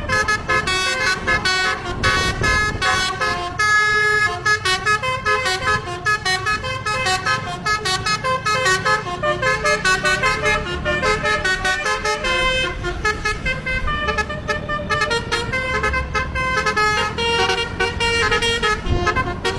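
Bus telolet horn, a set of multi-tone air horns, playing quick melodic tunes of short changing notes without a break, over a low rumble.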